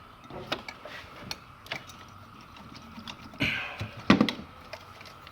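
Hand work on an AC compressor as it is worked loose and lifted out of the engine bay. Scattered clicks and knocks, a short scrape about three and a half seconds in, and the loudest knock just after four seconds.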